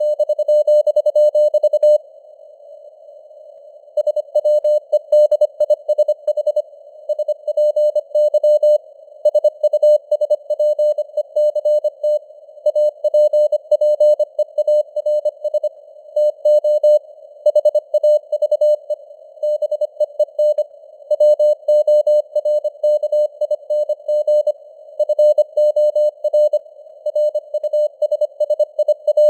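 Morse code sent at 25 words per minute: a single mid-pitched tone keyed in dots and dashes, over a steady hiss of simulated radio noise. The keying pauses for about two seconds near the start, then carries on.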